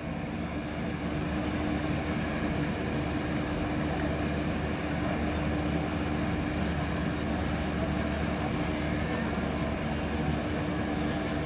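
Moored ships' diesel engines running, a steady drone with a constant hum over a low rumble.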